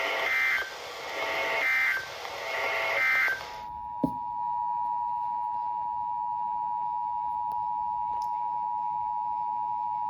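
Emergency Alert System SAME header data bursts, a harsh buzzy warble sent as separate blasts about a second long, the end of one and then two more. About three and a half seconds in they give way, with a click, to the NOAA Weather Radio 1050 Hz warning alarm tone, one steady unbroken tone that signals a new warning.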